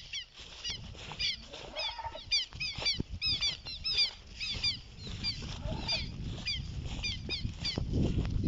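A bird calling over and over in a rapid series of short, harsh calls, about three or four a second, over a low rumble.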